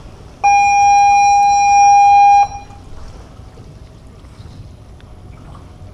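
A single loud, steady horn-like tone that starts abruptly about half a second in, holds for about two seconds and cuts off sharply, over wind and water noise.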